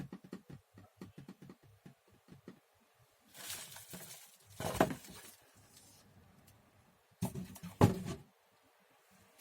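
Handling sounds of unboxing a hand tool. A run of quick light clicks fades out, then there is packaging rustle and two sharp knocks, one near the middle and one near the end.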